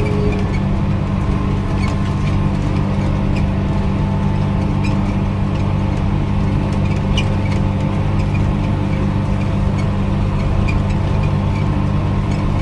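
Farm tractor engine running steadily at working speed while mowing hay, with light ticks and rattles over the even drone.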